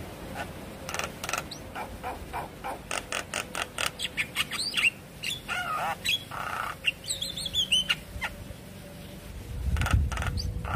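Javan myna calling: a run of quick clicking chatter notes, then whistled, gliding notes and a short harsh rasping note. A low rumble rises near the end.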